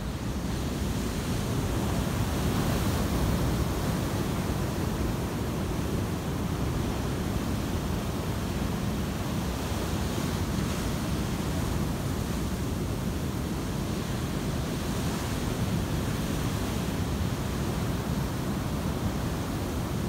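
Pacific Ocean surf breaking and foam washing over the shore, a continuous roar of water, with wind buffeting the phone's microphone.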